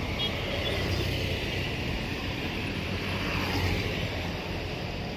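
Street traffic going by: a car and then a motor scooter passing, over a steady rush of tyres and engines.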